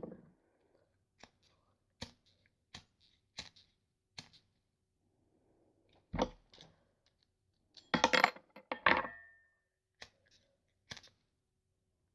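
A metal lighter being handled and worked on: scattered small clicks and taps, with a cluster of louder metallic clicks about eight seconds in, the last one ringing briefly.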